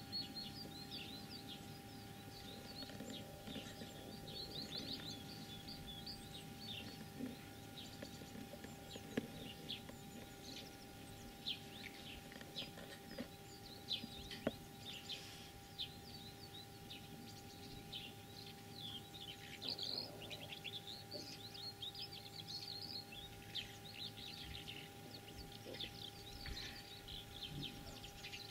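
Small birds chirping in a dense, continuous run of short high notes, over a faint steady hum.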